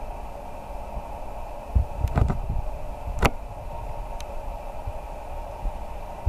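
Steady hiss with a low rumble of outdoor background noise, broken by a few sharp knocks between about two and three and a half seconds in and one faint tick a little later.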